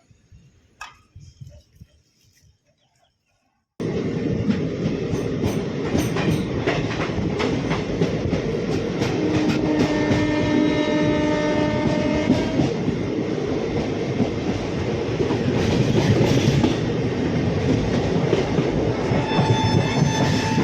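Train running, wheels clattering over the rails, cutting in suddenly after a few faint seconds. Its horn sounds for about three seconds midway and again near the end.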